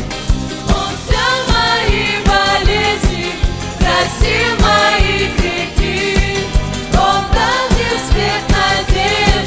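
Live church worship music: women singing with backing vocals over a band with a steady drum beat.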